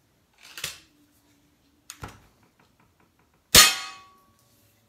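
A Diana 240 Classic break-barrel spring-piston .177 air rifle firing once, a sharp crack with a short ring as it dies away. Two quieter knocks come before it. After its rebuild and new trigger module the shooter hears no spring twang in the shot.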